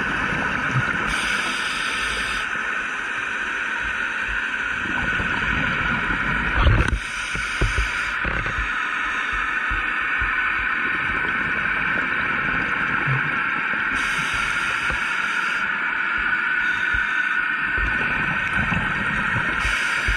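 Underwater sound through a camera housing: a steady hiss, with four bursts of scuba exhaust bubbles from a diver's regulator about every six seconds. A dull thump comes about a third of the way in.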